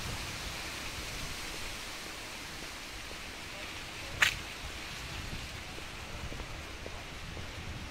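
Steady outdoor background hiss, with one sharp click about four seconds in.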